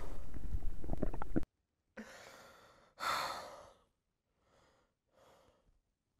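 A loud continuous noise cuts off abruptly about one and a half seconds in. Then comes a man's heavy, strained breathing: two exhales about a second apart, the second louder, then two fainter breaths.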